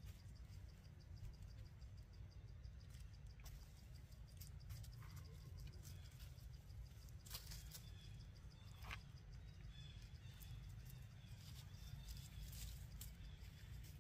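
Near silence: faint outdoor ambience with a low rumble, a faint high-pitched insect trill, and a few soft clicks.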